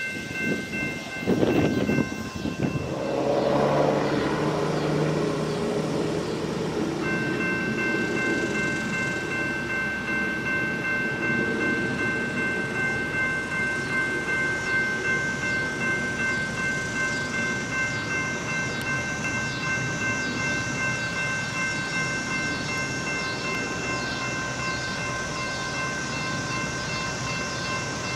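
Railroad grade-crossing warning bell ringing steadily while a commuter train approaches the crossing. A train horn sounds about three to six seconds in.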